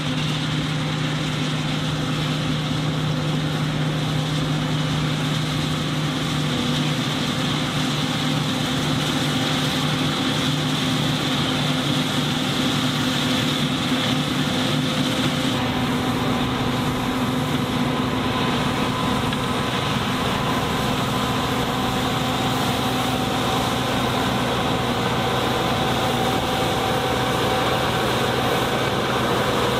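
John Deere W540 combine harvester running steadily at work: a continuous engine drone with a machinery hiss, its note shifting slightly a couple of times.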